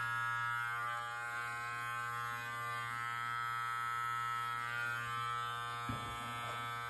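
Live Bearded MT-1 cordless beard trimmer running with a steady, even buzz as its blade cuts through beard hair on the cheek and under the chin.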